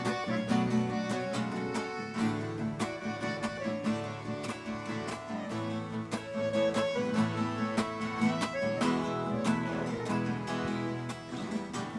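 Instrumental break of a sertanejo song: two acoustic guitars strumming and picking under an accordion, with no singing.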